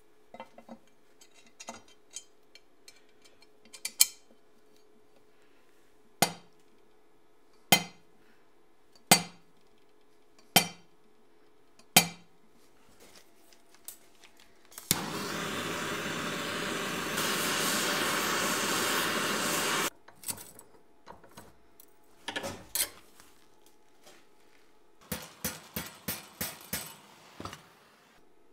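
Workshop metalwork: light metal clicks, then six sharp hammer blows on steel about a second and a half apart. A steady harsh power-tool noise follows for about five seconds and stops abruptly, then a quick run of taps near the end.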